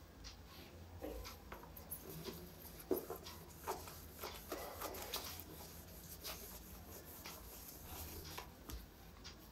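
A cloth rubbing marker ink off a whiteboard in irregular back-and-forth strokes, with a few light knocks against the board, the sharpest about three seconds in.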